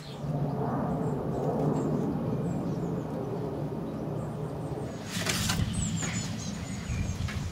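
Wren nest box: a low rumble, then a short scuffling flurry about five seconds in as an adult wren comes into the nest, followed by thin, high cheeps from the nestlings.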